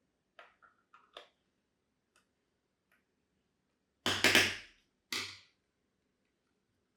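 A few light clicks, then two sharper knocks about a second apart, from handling the doorbell unit and tools while taking it apart.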